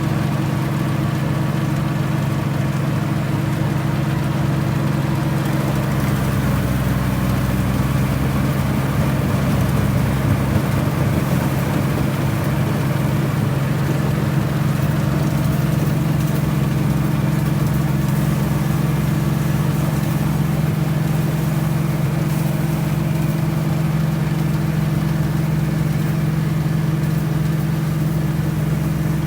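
Farm machine engine running at a steady speed, an even mechanical drone with a rougher low rumble for a few seconds near the start.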